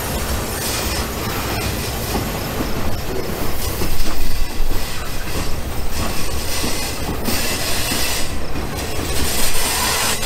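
Weathered model freight cars rolling past close by on the layout's track, a steady rumble and hiss of wheels on rail that swells for a moment about four seconds in.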